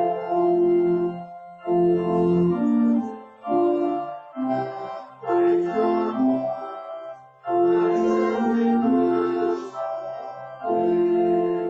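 Church organ playing a hymn tune in held chords, phrase by phrase, with short breaks between the lines.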